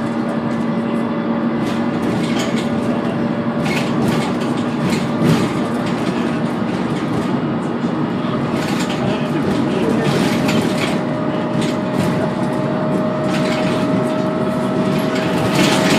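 Dennis Trident II double-decker bus with an Alexander ALX400 body, heard from on board while under way: the engine runs loud with a steady turbo whine that climbs slowly in pitch. Short knocks and rattles come and go over it.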